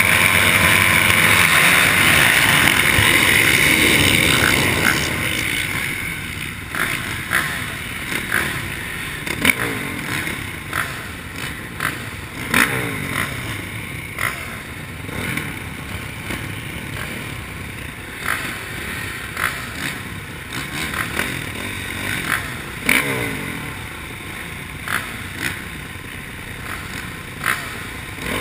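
Motocross bikes idling and revving at the starting gate: several engines revving loudly for the first few seconds, then a lower steady engine note with short sharp blips and clicks every second or two.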